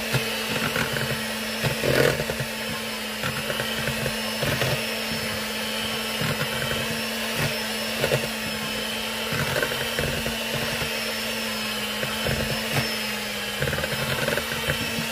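Electric hand mixer running steadily, its beaters churning a thick butter and egg-yolk mixture in a metal bowl and now and then knocking against the bowl.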